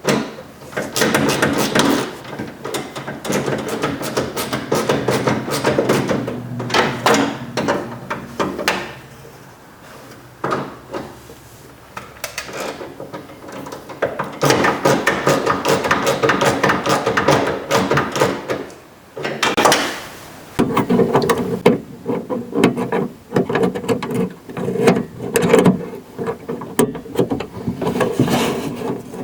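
Hand ratchet on an 8mm socket and extension clicking as the bolts holding a car's exterior door handle are run in and tightened inside the door, with knocks from tools and parts being handled. The clicking comes in long runs and pauses briefly around a third of the way in.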